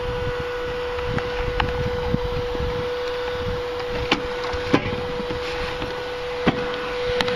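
Vacuum cleaner that powers a home-made tube railway, running steadily with a constant whine, while a few short knocks come from plastic-bottle carriages being handled in a plastic station bin.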